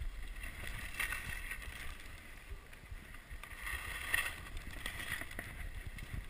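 Skis hissing through soft powder snow on a run through trees, swelling with each turn, about a second in and again around four seconds in. Low wind rumble on the microphone underneath.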